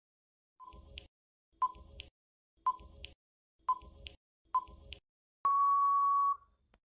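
Countdown-timer beeps: five short electronic beeps about a second apart, then one longer beep.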